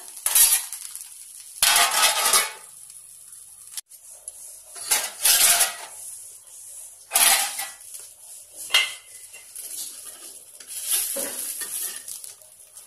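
A metal spatula scraping and turning eggplant slices in a small pan, in about six short bursts, over the sizzle of the slices frying in oil.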